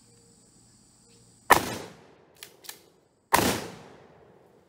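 Two 12-gauge shotgun blasts from an ATI DF-12 pump-action shotgun firing reloaded slugs, just under two seconds apart, each echoing off briefly. Between the shots come two short clacks as the pump is worked back and forward to chamber the next round.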